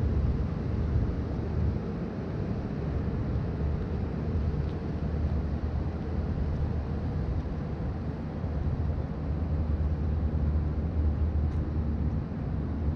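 Steady low rumble of city street traffic, with a faint hum under it.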